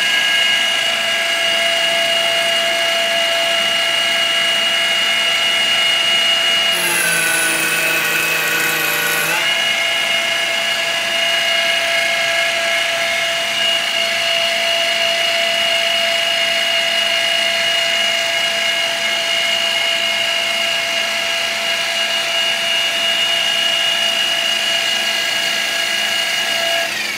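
TOS FN20 milling machine dry face-milling a small part with a Tungaloy face mill: a steady multi-tone machine whine. About seven seconds in the sound shifts lower and rougher for a couple of seconds, then returns to the same whine, which glides down at the very end.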